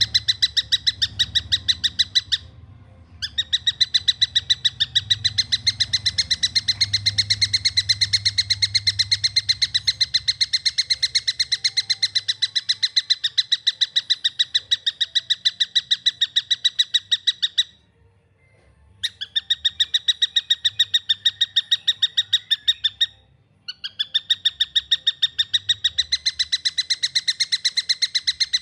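A young tengkek buto, a kingfisher, calling in a fast, tightly spaced series of short, clear notes pitched around 2 kHz. The series runs in long stretches, broken by brief pauses a little over two seconds in, around eighteen seconds and around twenty-three seconds.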